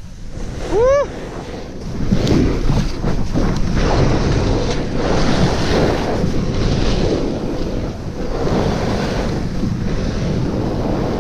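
Snowboard sliding through snow, with a steady rush of wind on the helmet camera's microphone; the noise gets louder about two seconds in as the board picks up speed. A short cry that rises and falls in pitch comes about a second in.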